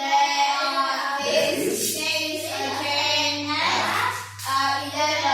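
A class of children reading a dialogue aloud together in chorus.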